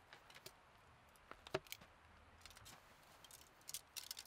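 Faint, scattered clicks and taps of a fly rod being handled and taken apart, the loudest about a second and a half in and a few more near the end.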